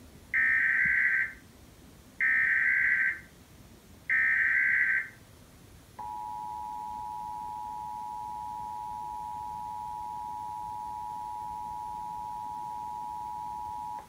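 Emergency Alert System test broadcast from a television: three one-second bursts of SAME header data tones about a second apart, then the steady two-tone attention signal (853 and 960 Hz sounded together) held for about eight seconds.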